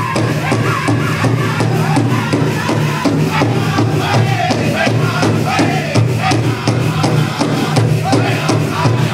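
Powwow drum group singing a jingle dress song: several voices over a big hand drum struck in a steady, fast beat.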